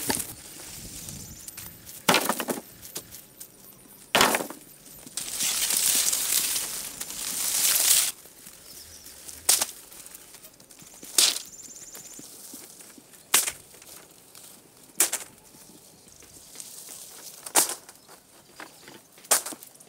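Sharp wooden knocks, roughly one every two seconds, from cut poles and bamboo being handled and piled. Between the early knocks there are a few seconds of rustling brush and leaves.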